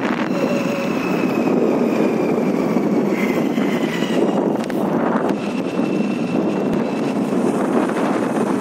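Wind buffeting the phone's microphone: a steady, loud rushing noise. Faint thin high tones come through now and then.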